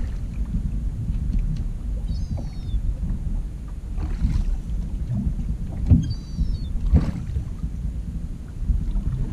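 Steady low wind rumble on the microphone and water against a small open boat's hull. Two short, high, falling calls come about two and six seconds in, and a couple of brief knocks fall near four and seven seconds.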